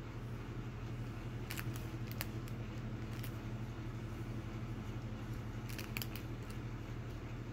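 A U-Lucky DF9225H12C 92 mm 12 V brushless computer fan running with a steady low hum. A few sharp clicks and knocks from handling its plastic frame come through, with a cluster of them near the end.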